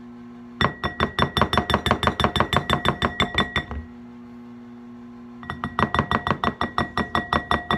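Metal spoon stirring quickly in a bowl, clinking against its side about seven times a second with a short ring. There are two runs of about three seconds each: one starts under a second in, the other about halfway through. The spoon is working spread into a marinade sauce.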